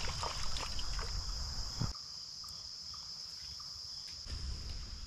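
Steady, high insect chirring, like crickets, over a soft wash of creek water, with a few light clicks. A low rumble underneath drops away about two seconds in.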